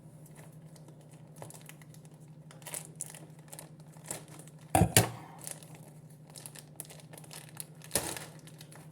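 Packaging being torn and cut open by hand, with crinkling and rustling throughout and two loud sharp tears, one about halfway through and one near the end.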